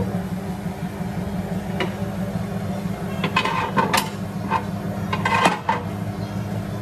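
Nissan 180SX engine running steadily, with scattered light metallic clinks and rattles from the engine bay, the strange noise being tracked down.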